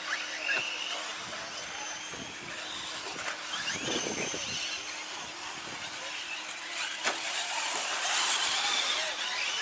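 Electric brushless-motor RC short course trucks racing on a dirt track, their motors whining and gliding up and down in pitch as they accelerate and brake. The sound gets louder around eight seconds in.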